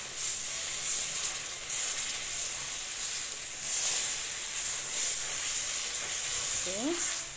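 Hot sugar caramel hissing and sputtering with steam as cream is stirred into it with a silicone spatula. The hiss swells and eases several times.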